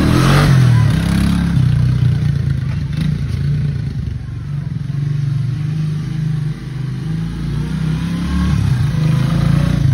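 Honda Big Red 250 ATC three-wheeler's single-cylinder four-stroke engine running while it is ridden, its level rising and falling with the throttle.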